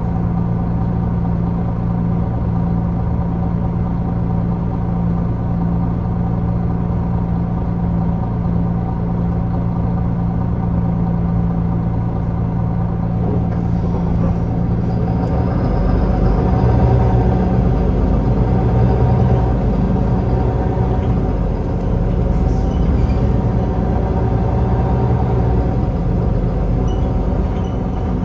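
MAN Lion's City Hybrid bus's six-cylinder MAN D 2066 diesel engine idling steadily, then about halfway through its rumble grows louder and rougher as the bus pulls away, with a faint high whine.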